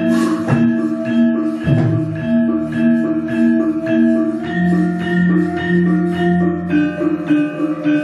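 Javanese gamelan ensemble playing, its struck metal bar instruments sounding a steady run of ringing notes, with a couple of sharp knocks in the first two seconds.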